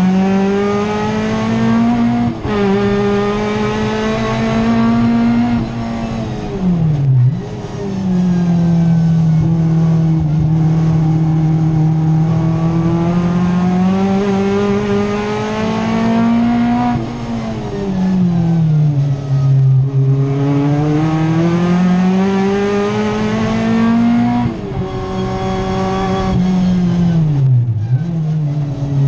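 Race car engine heard from inside the cockpit, held at high revs through a lap. The pitch climbs, steps down at gear changes about two seconds in and again near the end, and drops deeply off the throttle three times (around seven seconds, around eighteen to twenty seconds, and shortly before the end) before climbing again.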